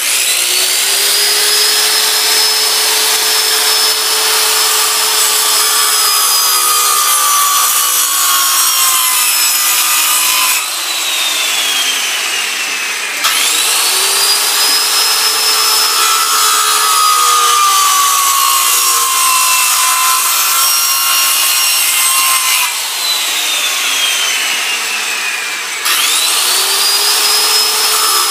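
Corded circular saw cutting across a spruce log, its motor whine sagging as the blade bites into the wood. The saw is let off twice, winding down with a falling whine, and each time started again a couple of seconds later, spinning back up.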